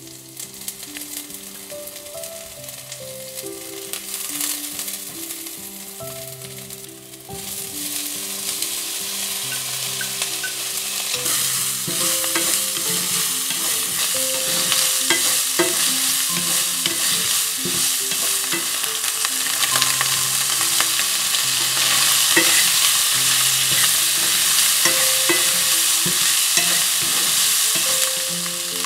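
Diced SPAM and green onion sizzling in a frying pan, a steady hiss that grows louder about seven seconds in and again a few seconds later. A wooden spatula stirs the pieces, with scattered scrapes and taps against the pan.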